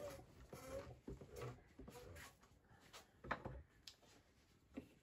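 Faint handling noises of hands patting and smoothing wool fibre on a drum carder's drum, with a few light clicks and knocks, the sharpest a little past halfway and another near the end.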